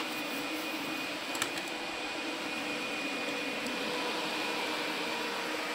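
A steady machine hum with a few faint steady tones in it, and one short click about a second and a half in.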